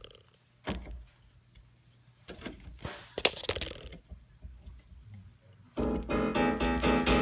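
Electronic keyboard: a few short clicks and faint sounds, then about six seconds in a loud, dense chord-like sound from one of its preset voices, with notes repeating rapidly.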